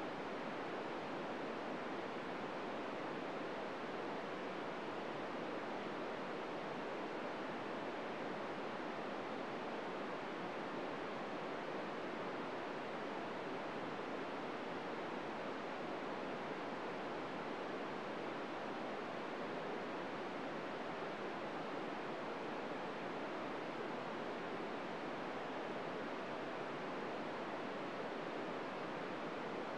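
Steady hiss of static from a VHF FM radio receiver tuned to 145.800 MHz, with no SSTV tones in it: the International Space Station's SSTV signal is lost in the noise with the station only a few degrees above the horizon.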